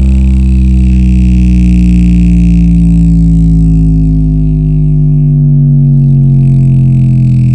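Subwoofer playing a very loud bass-boosted deep drone, heavily distorted, sliding slowly down in pitch.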